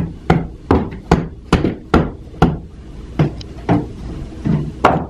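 Hammer striking nails into wood framing in a quick run of about a dozen blows, two to three a second, with a brief pause about three seconds in.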